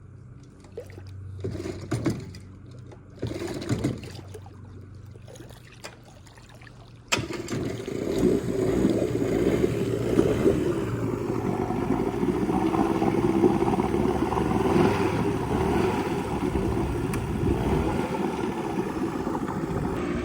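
A small boat engine catches abruptly about seven seconds in and keeps running. Before it starts there are a few short knocks over a low hum.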